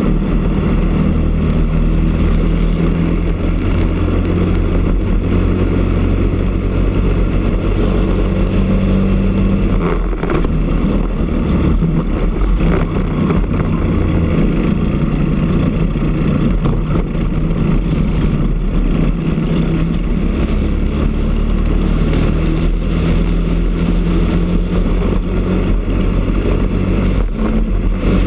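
Briggs & Stratton LO206 single-cylinder four-stroke kart engine running hard at racing speed, heard close from on board the kart. About ten seconds in it comes off the throttle, the sound turning choppy as the kart slows for a corner, then it pulls back up through the revs toward the end.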